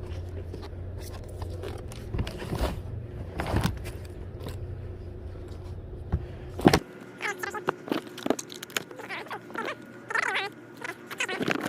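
A steady low hum that cuts off suddenly about seven seconds in, with scattered knocks, clicks and rustles of items being handled and sorted throughout.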